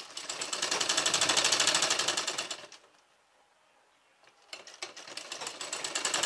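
Industrial sewing machine stitching a seam along chalk marks to take in a readymade school uniform. It runs in two stretches: it speeds up and runs fast for about two and a half seconds and stops, then starts again about four and a half seconds in.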